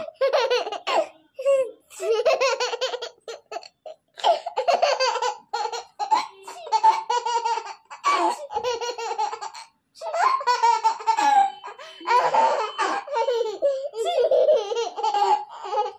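A baby laughing hard in repeated bursts of high, wavering giggles, broken by short pauses.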